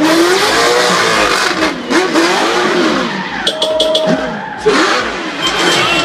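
A drifting car's engine revving up and down over and over as it slides, with tyres screeching.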